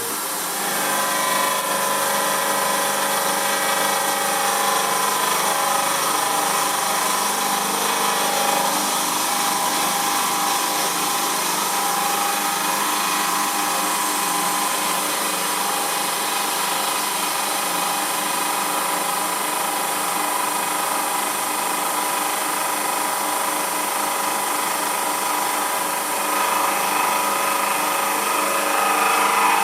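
Emco F1 CNC milling machine with its spindle running and an end mill cutting a cast aluminium engine pan: a steady machining whine whose tones shift as the cutter moves. It gets louder about a second in, as the cut takes up, and again near the end.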